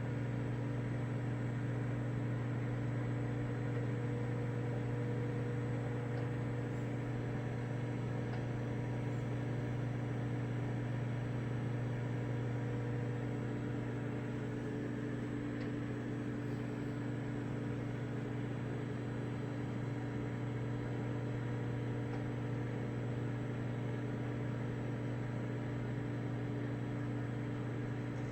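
Black & Decker 700-watt microwave oven running at full power, heating a glass of water: a steady low hum with its fan whirring.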